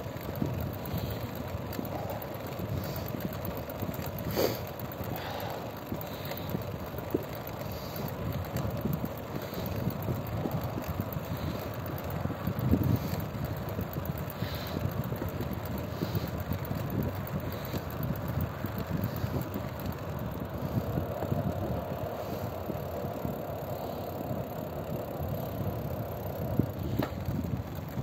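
A vehicle on the move: steady road and engine rumble with wind on the microphone, and a faint tick about once a second.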